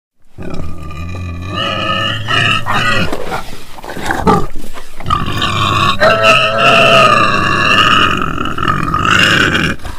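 Loud animal calls: a string of short calls, then one long drawn-out call from about five seconds in until near the end.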